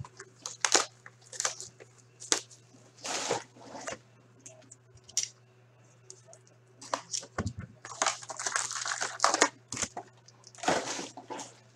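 A hobby box of hockey card packs being slit open with a box cutter, then its foil packs pulled out and dropped onto the table: irregular crinkling of plastic wrap and rustling, scraping cardboard, busiest in the second half.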